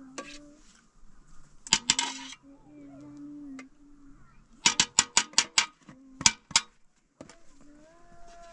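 Metal spoon clinking and scraping against a tin can, in quick runs of sharp clinks about two seconds in and again from about five to six and a half seconds.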